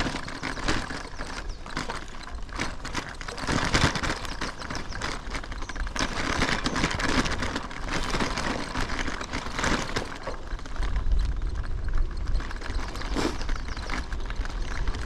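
A loaded touring bicycle ridden over rough, sandy off-road trail: tyres crunching over sand and gravel while the bike and its luggage rattle and clatter without let-up. A low rumble joins about two-thirds of the way through.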